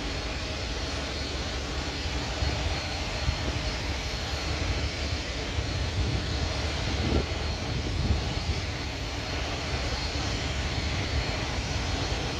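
Airbus A321neo jet engines running at taxi power as the airliner rolls toward the gate: a steady rumble and hiss with a faint high whine.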